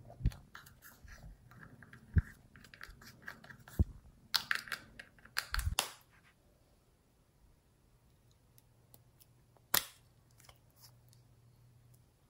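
Small spatula scraping and digging pressed eyeshadow powder out of its pot, a run of scratchy clicks with a few sharp taps against the pot, for about the first six seconds. After that it is mostly quiet, with one sharp click near the end.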